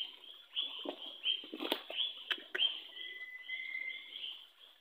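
A creature's short high chirps repeating about three times a second, with a brief steady whistled note near the end. A few sharp clicks near the middle come from hands working among stones in the shallow water.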